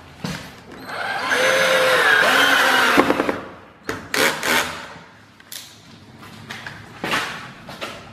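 Cordless drill driving screws down into a solid hickory mantle. The motor runs for about two seconds with its pitch wavering under load, then gives several short bursts.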